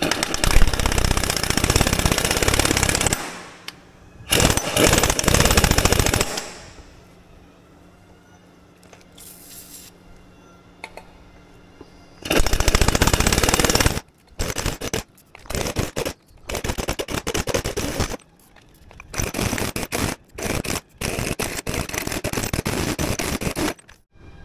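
An impact wrench hammering in bursts, run back and forth on nuts welded onto broken-off bolts to work the rusted bolts out. There are three long runs of a couple of seconds each, then a string of short on-off bursts.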